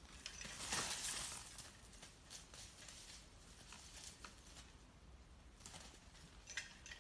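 Faint rustling and scuffing with scattered light clicks, and a brief louder rush of noise about a second in.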